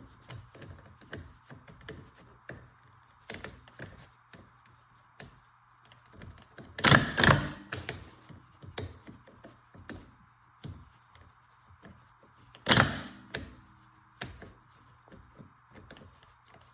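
Bad John Deere 301A starter on the bench, jumped from a battery with jumper cables: metal clicks and taps as the connections are touched, and two loud clunks of the solenoid about seven seconds in and another near thirteen seconds, each with a brief faint ringing. The solenoid works but the starter's field coils are bad, so it barely throws the pinion out.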